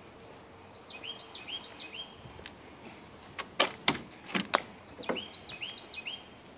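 A songbird singing two runs of quick, repeated arching chirps. Between the runs come four sharp clicks, the loudest sounds, as the 1939 Chevrolet sedan's door handle and latch are worked and the door is opened.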